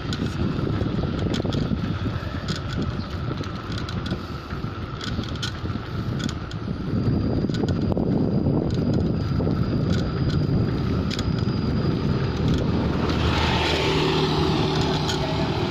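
Wind rumbling on the microphone while travelling along a street, growing stronger about seven seconds in. Near the end a passing motor vehicle's engine adds a steady hum.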